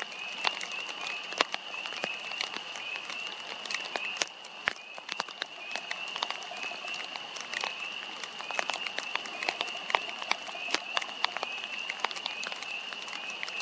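A steady chorus of short, high chirping calls repeating several times a second, with scattered sharp clicks and crackles throughout.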